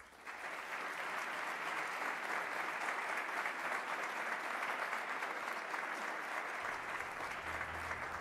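Audience applauding steadily in a large hall after a speech ends.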